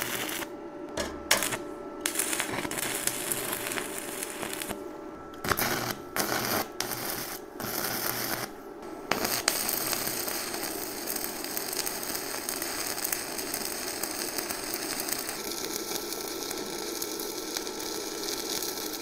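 Stick-welding arc of a 3/32-inch 7018 low-hydrogen rod on a Yeswelder Flux 135 Pro at 85 amps, crackling. In the first half it drops out and restrikes several times, then it burns steadily from about halfway. At this setting the arc keeps going out on its own, a sign the machine needs more amperage for this rod.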